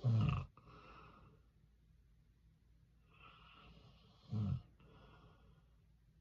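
A sleeping man snoring: two loud, low snores about four seconds apart, each with softer breathing around it.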